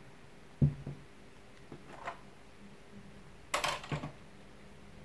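Handling noise on a tabletop: a corded rotary tool set down with a single knock about half a second in, a faint click, then a short clatter about three and a half seconds in as things are moved on the table.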